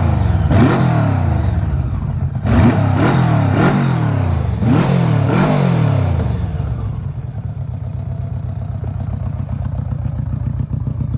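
Honda GL1100 Gold Wing's flat-four engine revved in quick throttle blips, each rising and falling back, about six in the first six seconds. It then settles to a steady idle.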